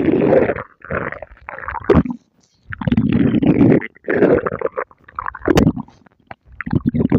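A person's stomach growling: about five rumbles of a second or so each, broken by short pauses, with a sharp click about five and a half seconds in.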